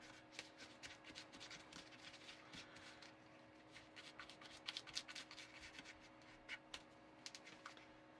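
Small plastic spoon scraping and stirring crumbly cookie dough in a plastic tray: faint, quick scratchy strokes.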